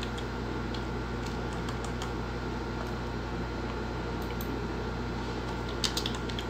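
Steady low hum throughout, with a few scattered clicks and then a short run of computer keyboard typing near the end.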